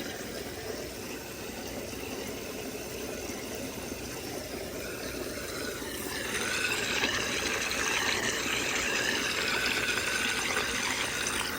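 Water churning in a fish tank as a pump-driven venturi aerator draws air into the water stream. It makes a steady rush that grows louder and brighter about six seconds in.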